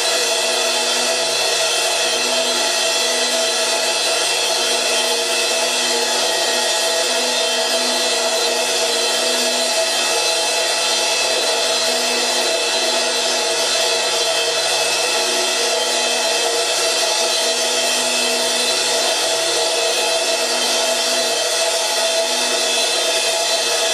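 A cymbal kept ringing in a steady, unbroken metallic drone of many clashing overtones, with no separate strikes.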